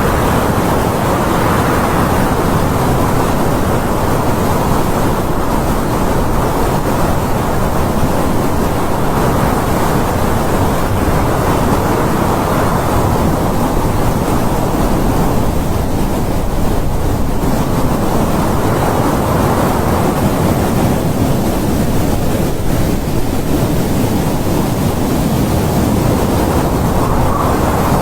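Strong wind blowing continuously, swelling and easing in slow gusts every several seconds.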